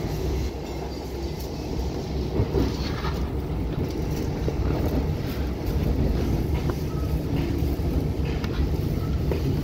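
Long Island Rail Road passenger train under way: a steady low rumble of the ride, with scattered faint clicks.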